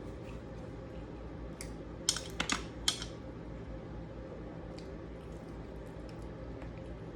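Eating sounds: a quick run of four or five sharp clicks and crunches about two seconds in, with faint small clicks before and after, over a low steady hum.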